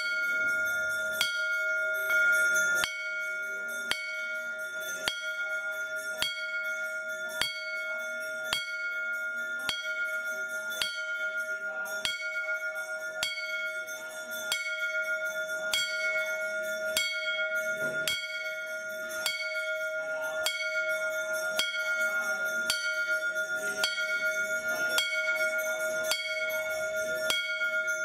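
A bell struck at a steady pace, about once a second, with its clear tones ringing on from one stroke into the next, as rung through a Hindu puja.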